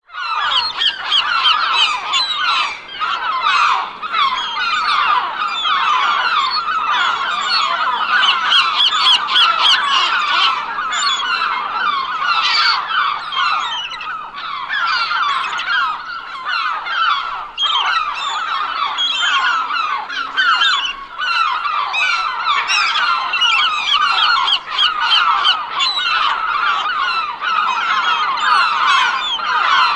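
A large flock of gulls calling all at once: many overlapping cries that go on without a pause.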